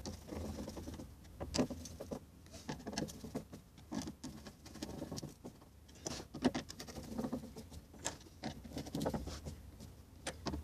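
Screwdriver tightening the Phillips-head screws of a fuel pump retaining ring on a steel tank flange: irregular small clicks and scrapes of tool and screw heads on metal.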